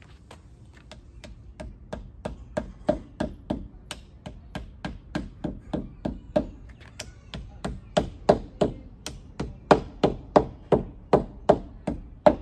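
Hammer tapping plastic wall anchors into pre-drilled holes in a post: a steady run of light blows, about three a second, growing louder from about halfway through.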